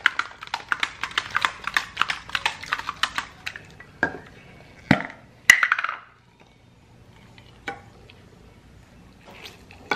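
A hard-boiled egg knocking and rattling in a little water inside a Negg plastic egg-peeler cup that is shaken rapidly, about five knocks a second for three and a half seconds. Then a few louder single knocks follow.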